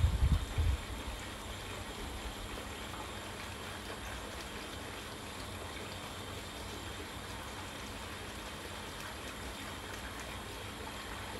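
Steady hissing background noise, with a few dull low thumps in the first second.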